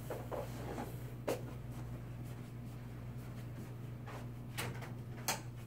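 Steady low hum in a small room, with a few light knocks and clicks as someone gets up from an office chair and moves about; the sharpest click comes near the end.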